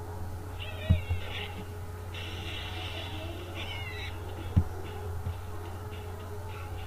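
Small birds calling: a warbling call, then a longer steadier call and another warbling call, all high-pitched. Two dull thumps, the loudest sounds, come about a second in and again near the middle.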